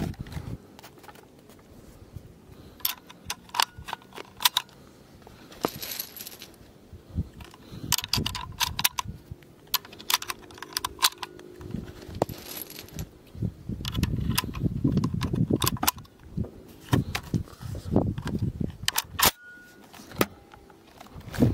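SKS rifle being loaded by hand through its open action: cartridges clicking and clinking against the steel receiver and fixed magazine as they are thumbed in one by one. Sharp metallic clicks with a brief high ring recur irregularly, with a stretch of low rumbling handling noise in the middle.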